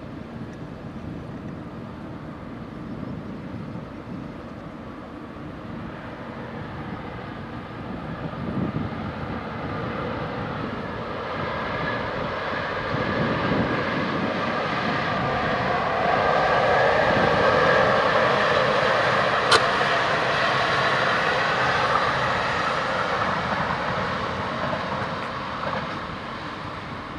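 Passenger train of double-deck coaches behind an electric locomotive running past, its noise swelling to a peak in the middle and fading toward the end. A single sharp click rings out at the loudest point.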